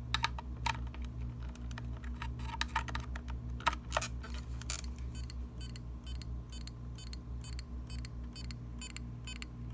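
Failing SATA hard drive clicking: sharp irregular clicks in the first half, then a rapid, even ticking of a few clicks a second over a low pulsing hum. The clicking is the sign of a dead drive that the computer does not detect.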